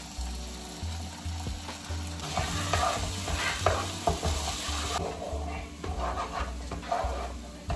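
A wooden spatula stirring and scraping cream into tomato paste in a hot frying pan, with the pan sizzling. The sizzle is strongest in the middle and drops off suddenly about five seconds in, while the scraping strokes go on.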